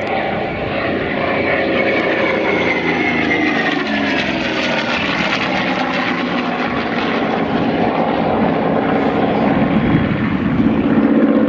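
Two radial-engined WWII fighters, a Vought F4U Corsair and a second fighter, flying past in formation: a loud, throaty propeller-engine drone whose pitch falls over the first few seconds as they pass, then swells louder near the end.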